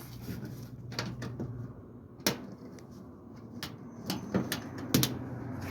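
Scattered sharp clicks and light knocks of small screws and the dryer's sheet-metal top being handled during reassembly, the loudest a little over two seconds in.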